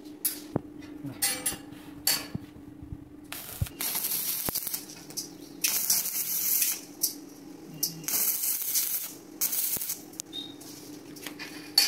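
Stick (arc) welding on steel gate bars: the electrode arc crackles and hisses in short bursts of about a second each, a series of tack welds struck one after another, over a steady low hum.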